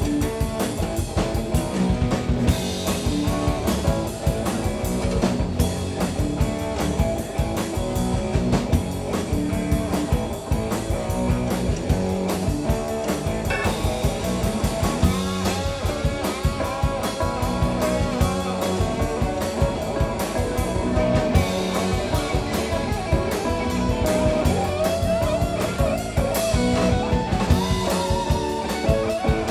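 Live rock band playing an instrumental passage: electric guitar leading over drum kit and band backing, with wavering bent notes near the end.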